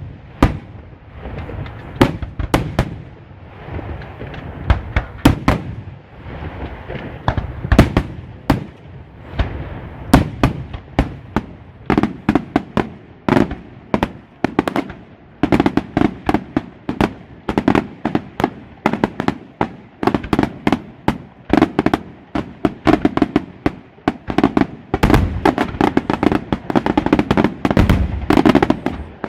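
Aerial fireworks shells exploding in a series of sharp bangs. They come a few seconds apart at first, grow steadily denser from about twelve seconds in, and turn into a rapid, near-continuous barrage of bangs near the end.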